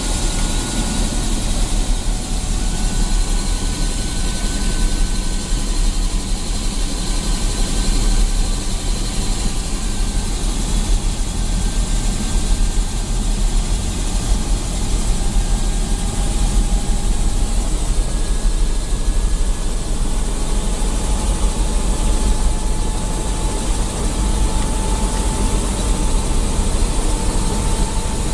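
Eurocopter AS350 B2 Écureuil helicopter running, heard from inside the cabin: its Turbomeca Arriel turboshaft engine and main rotor give a steady loud noise with a deep low throb and thin high whines that drift slightly in pitch.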